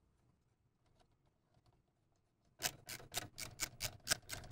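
A quick run of sharp clicks, about five a second, starting about two and a half seconds in, as the nuts holding a Corsair H150i Pro CPU cooler block to the motherboard are tightened down.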